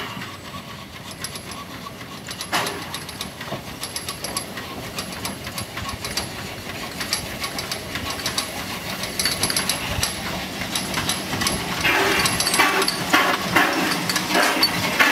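Vale of Rheidol narrow-gauge steam locomotive no. 8 'Llywelyn', a 2-6-2 tank engine, running slowly in with its coaches: a quick, rhythmic clanking and knocking of its motion with a hiss of steam, getting louder as it comes close.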